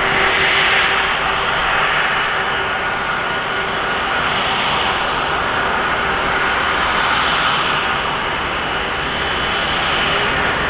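The Airbus A330-300's twin Rolls-Royce Trent 700 turbofans run at low taxi thrust as the airliner turns. It is a steady jet whine with a few held tones, and a hiss that swells and fades slowly as the engines swing toward and away.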